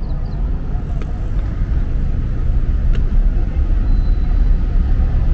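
Busy city street ambience: a steady low rumble of traffic and buses, with indistinct voices of people around.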